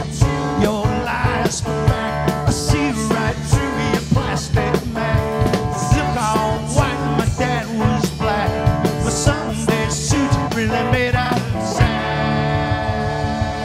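Rock band playing an instrumental passage, with electric guitar and busy, hard-hit drums. Near the end the drumming thins out and a held chord rings.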